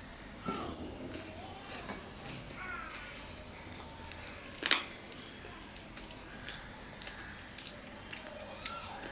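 Close-up eating sounds of a person chewing tandoori roti and mutton curry, with scattered small clicks and one louder click about halfway through.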